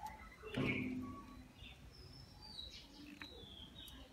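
Small birds chirping in short high calls, with a brief louder low pitched sound about half a second in and a few light clicks.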